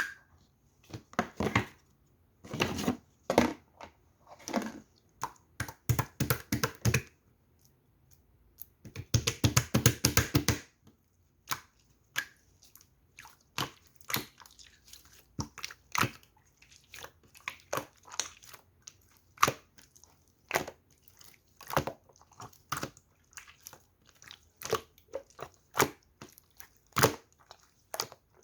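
Slime being pressed and squished by hand, giving sticky pops and crackles from trapped air. It comes in dense bursts for the first ten seconds or so, then settles into single pops about once or twice a second.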